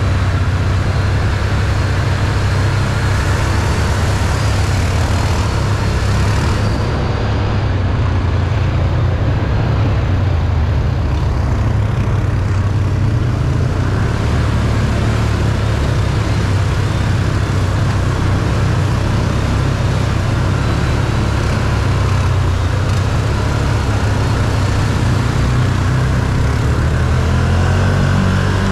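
A Can-Am 1000's V-twin engine running steadily, with a constant low engine note and road noise for the whole stretch.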